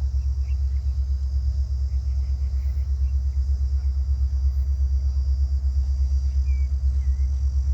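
Low, steady rhythmic throb of a WDP4 diesel-electric locomotive's EMD engine running, with a steady faint high insect hiss behind it. A few short bird chirps come about half a second in and again near the end.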